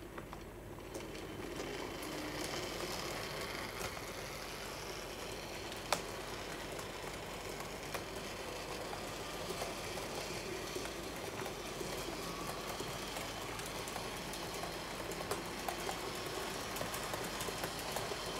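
HO-scale model train, a Rivarossi NS class 1300 electric locomotive hauling hopper wagons, running along layout track: a steady rolling rattle of small wheels and motor, with occasional sharp clicks, the loudest about six seconds in.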